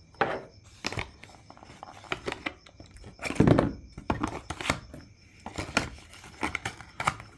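Scattered clicks, taps and rustles of small objects being handled, with one louder knock-like sound about three and a half seconds in.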